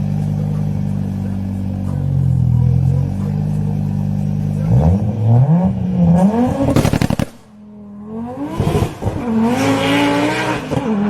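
Car engine idling steadily, then revved hard: the pitch climbs quickly, the sound cuts off abruptly about seven seconds in, then it rises and falls again in further revs.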